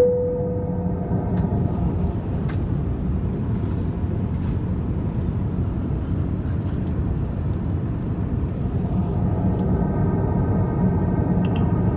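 Steady in-flight cabin noise of an Airbus A350-1000, a low rumble of engines and airflow. Right at the start a single cabin chime rings and fades over about a second: the chime that comes with the seatbelt sign.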